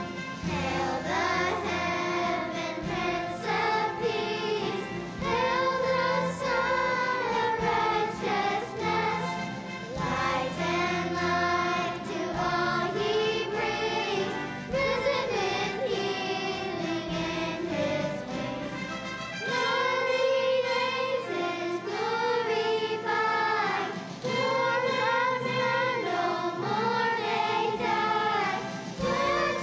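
A children's choir singing a song together, with instrumental accompaniment underneath whose low notes drop out for several seconds in the second half.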